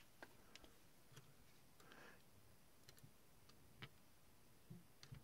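A few faint, irregular clicks and taps of metal tweezers and a small screwdriver against the plastic truck and bolster of a model freight car as a truck screw is set in place. The clearest tick comes nearly four seconds in.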